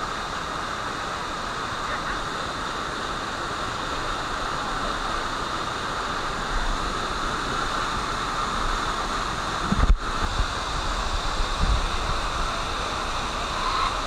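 Steady rush of a waterfall's falling water. Past the middle, a few low thumps of wind buffeting the microphone.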